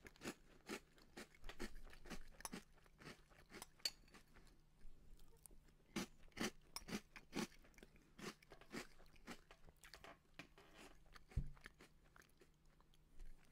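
Close-miked chewing of crunchy corn puff cereal in milk, about three crunches a second, with a short pause midway. A single dull knock comes about eleven seconds in.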